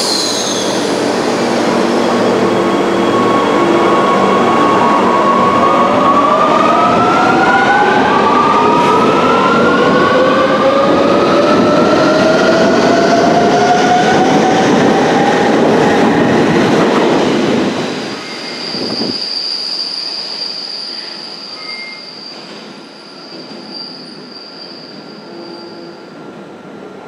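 Rome Metro electric train pulling out and accelerating past: the traction motors whine, rising steadily in pitch over the rumble of the cars. About 18 seconds in, the noise drops away as the train enters the tunnel, and a thin, steady, high squeal of wheels on the curve carries back from it.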